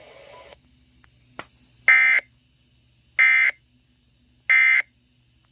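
Three short, buzzy electronic data bursts about a second apart: the SAME digital end-of-message code of a NOAA Weather Radio broadcast, marking the end of the warning.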